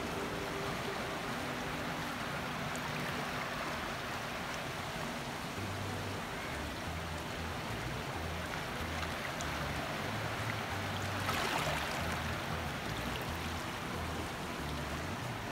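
Steady rush of fast, swirling river water boiling up in the tailwater below a dam, swelling a little louder about two-thirds of the way through.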